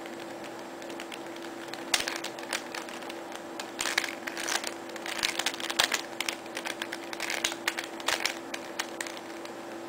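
Square-1 puzzle being turned quickly by hand: rapid, irregular clicking and clacking of its plastic layers twisting and slicing, starting about two seconds in and stopping near the end, over a steady faint hum.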